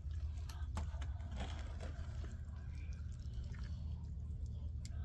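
Wet cement mix being worked by pulling a tool back and forth through it: soft, uneven wet scraping and squelching, over a steady low hum.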